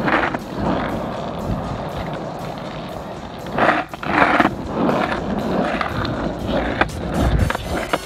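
Small wheels of a child's three-wheeled kick scooter rumbling steadily over an asphalt path, louder for a moment about four seconds in.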